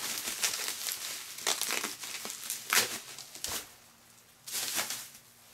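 Bubble wrap crinkling and crackling as it is pulled off and handled, in irregular bursts with a short lull a little past the middle.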